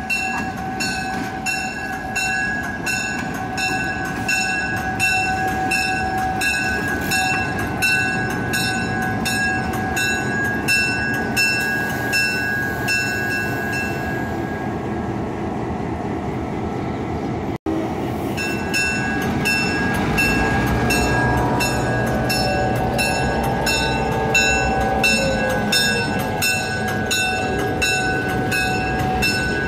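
Grade-crossing warning bell ringing rapidly and evenly, about two to three strikes a second, over the rumble of EMD GP9 diesel locomotives. About two-thirds of the way through, the engine rumble grows louder and wavering wheel squeals join in as the locomotives roll slowly through the crossing.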